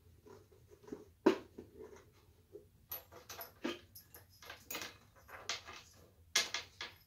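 Small lamp parts and the electrical cord being handled and fitted together on a workbench: irregular clicks, taps and light rattles, the sharpest about a second in and again near the end.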